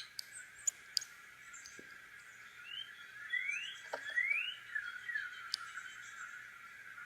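Faint background birdsong: a few rising whistled notes about halfway through, over a steady high background hum, with two sharp clicks about a second in.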